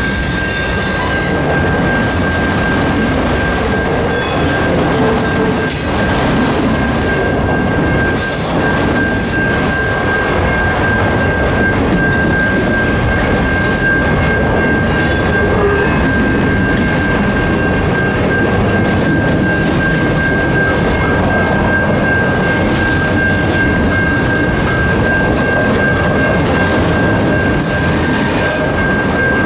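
Long freight train of boxcars and autorack cars rolling past over a level crossing: a steady heavy rumble of steel wheels on rail, with clusters of sharp clicks from the wheels over rail joints and the crossing. A steady high ringing tone sounds over the rumble.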